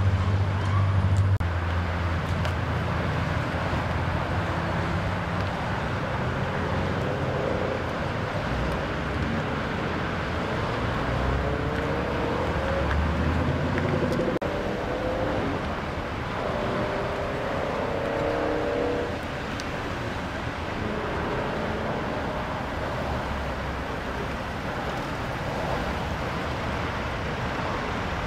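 Steady freeway traffic noise, with vehicles passing in the middle and a nearby engine idling as a low hum that fades about halfway through.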